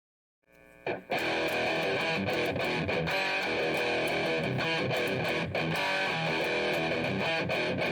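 Intro music with strummed electric guitar, starting about a second in after near silence.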